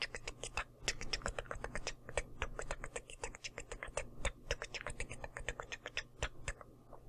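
Rapid, irregular tongue clicks, several a second, made as part of a light-language vocal transmission; they stop about six and a half seconds in.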